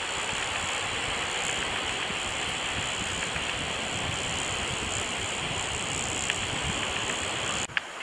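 Steady outdoor rushing noise on an open beach, cutting off abruptly near the end.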